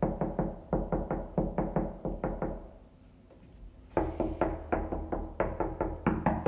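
Knuckles rapping quickly on hollow drywall, about five knocks a second, in two runs with a short pause between: knocking to find a stud behind the wall, with none found near the handrail bracket.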